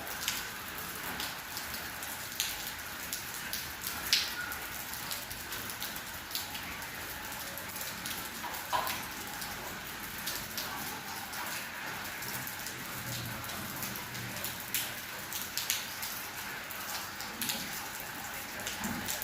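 Rain falling steadily: a constant hiss with frequent irregular sharp drip ticks of drops hitting a surface, a few louder than the rest.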